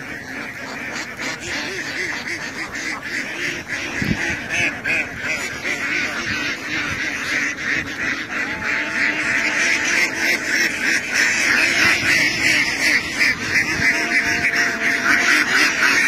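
A large flock of domestic ducks quacking together in a dense, continuous chorus, growing louder toward the end as the flock comes close.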